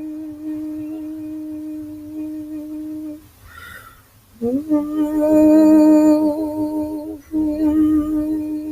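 A voice humming long, steady held notes as sound-healing toning. The first note breaks off about three seconds in, followed by a breath. The next note slides up into place and is held, with a brief break near the end.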